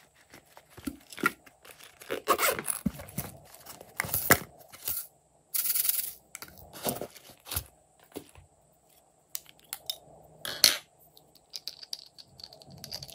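Handling of a glossy holographic vinyl pouch: crinkling and rustling of the plastic, with a half-second rasp a little before halfway, and clicks and taps of small plastic glitter containers being taken out and set down, the loudest a sharp click late on.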